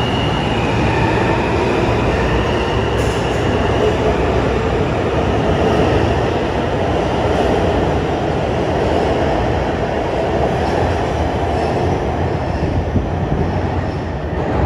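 New York subway R160 train pulling out of a station and running past: a steady loud rumble of wheels on rail and motors, with a thin high squealing tone in the first few seconds. The rumble falls off slightly near the end as the last car enters the tunnel.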